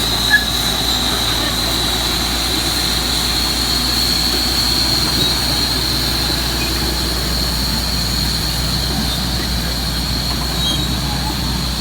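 Komatsu D375A crawler bulldozer's large diesel engine running steadily as the machine works, with a steady high-pitched whine throughout.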